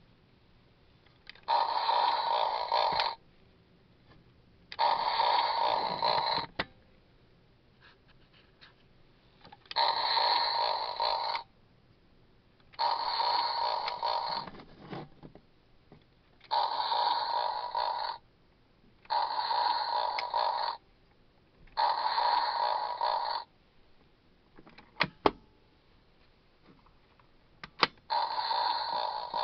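Supertoys light-up hippopotamus flashlight toy playing its electronic sound effect eight times, each play about a second and a half long with short silent gaps between. A few clicks of the toy's button come near the end.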